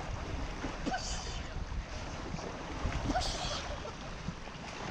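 Wind rumbling on the microphone over water lapping at the jetty, with short hissy washes of water about a second in and again just after three seconds.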